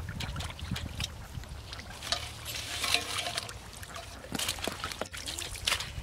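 Shallow muddy water sloshing and trickling, with irregular small splashes, as a man wades barefoot and scoops at the surface with a steel bowl.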